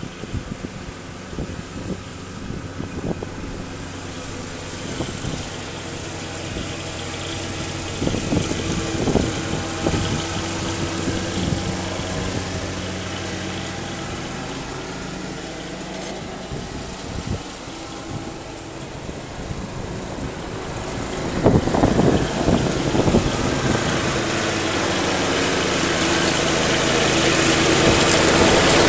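Riding lawn mower engine running steadily under load while mowing, growing louder as the green-and-yellow John Deere lawn tractor comes closer, loudest near the end.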